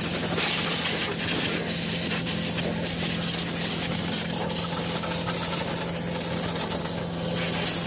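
Pressure-washer wand spraying hot water over a diesel engine: a continuous loud hiss of spray, with a steady low engine hum underneath.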